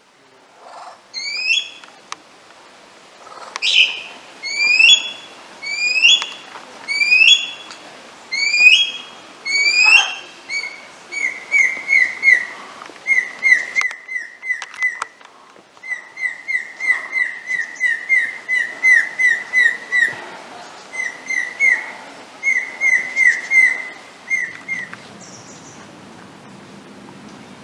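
Superb lyrebird singing at close range. It gives a string of loud, upward-sweeping whistles about once a second, then switches to fast runs of short, sharp notes on one pitch in bursts, and stops a few seconds before the end.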